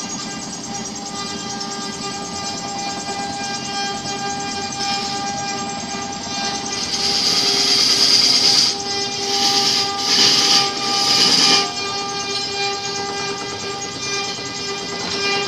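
Wood lathe running with a steady motor hum as a hand-held chisel cuts a spinning wooden log. The cutting comes as loud hissing scrapes in several bursts about halfway through.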